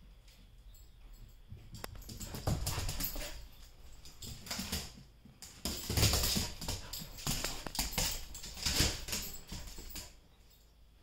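A dog's claws clicking and scrabbling on a hard floor as it dashes and pounces after a laser dot. The patter comes in quick flurries, starting about two seconds in and dying away near the end.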